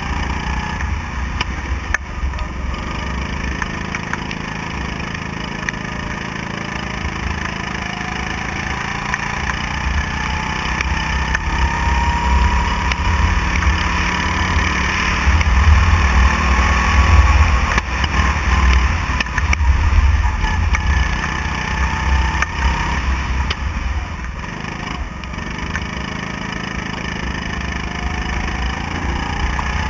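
Go-kart engine running at speed round a track, its pitch climbing slowly through the first half, dipping around two-thirds of the way through and climbing again near the end as the driver accelerates and lifts for corners, over a heavy low rumble.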